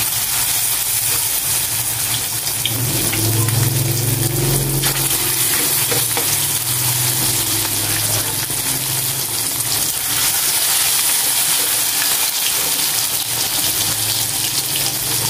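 Egg-battered eggplant frying in hot oil in a wok, a steady, dense sizzle.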